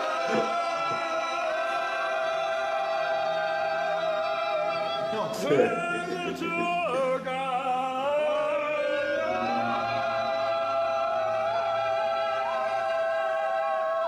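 A voice singing long held notes: one steady note for about five seconds, a brief break of sliding pitch, then another long held note that steps up slightly and ends near the end.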